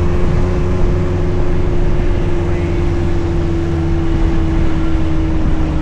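Suzuki Jimny engine running steadily while driving off-road: a low drone with a steady whine held over it.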